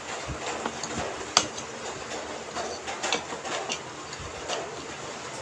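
Close-up eating sounds of a person chewing banana cue, with scattered small mouth clicks and one sharper click about a second and a half in.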